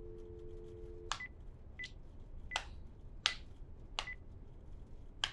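Telephone dial tone, two steady tones together, cut off about a second in, then six keypad presses, each a click with a short high beep, as a phone number is dialled.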